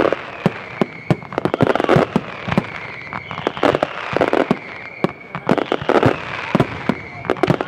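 Fireworks display: aerial shells bursting in quick succession, a dense run of sharp bangs throughout.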